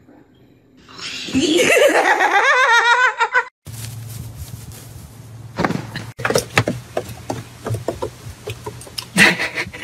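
A person laughing in a high, wavering shriek for about two seconds. Then, after a cut, light scattered clicks and knocks over a low hum.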